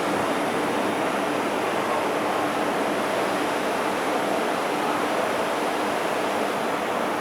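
Steady rushing noise of an MTR Kwun Tong Line M-Train running through an underground station platform, with a faint low hum under it.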